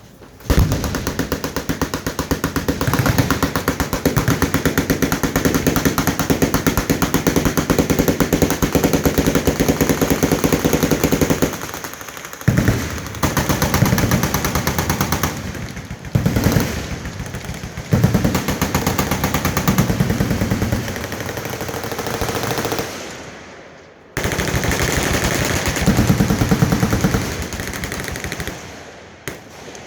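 Automatic machine-gun fire from a firing line, rapid shots running together into long sustained streams. It breaks into shorter bursts with brief lulls, stops abruptly about two-thirds of the way through, then starts again.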